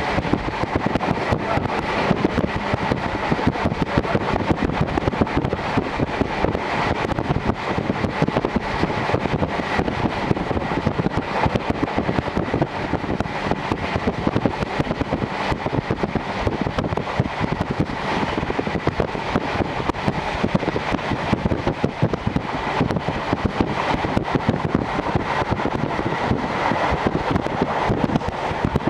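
A JR Hokkaido Series 711 electric train running at speed, heard from inside the car through an open window. Wheels rumble steadily on the rails, mixed with a rush of air and a dense, fast rattle.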